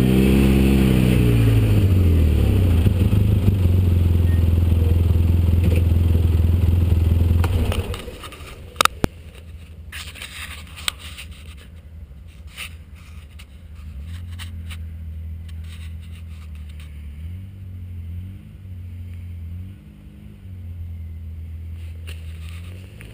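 An off-road 4x4's engine runs steadily under load, heard loud and close, easing down in pitch about two seconds in. It stops abruptly about eight seconds in. After a couple of sharp clicks, a quieter, more distant engine comes in at about fourteen seconds, rising and falling as a vehicle crawls over a rocky trail.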